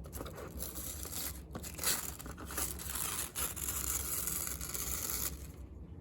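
Packaging being torn and crinkled by hand while a diecast car's box is opened, a continuous rustling with a few sharper rips that stops about five seconds in.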